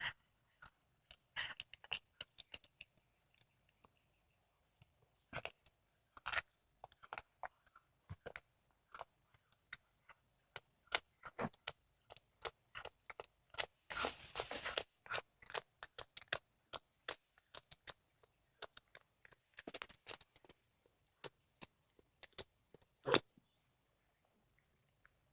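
A cat chewing and crunching through a squirrel it has caught: irregular sharp crunches of teeth on bone, with a denser stretch about halfway and one loudest crunch near the end before it stops.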